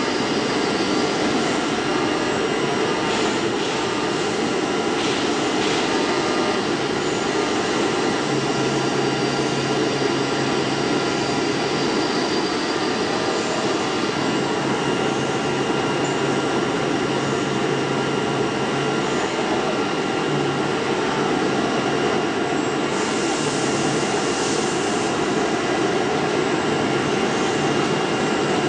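DCZ70 oscillating-knife flatbed cutting machine running as it cuts a board: a steady, even mechanical hum with several steady whining tones over it. A lower hum tone joins from about eight seconds in to about nineteen seconds, and there is a short hiss a few seconds before the end.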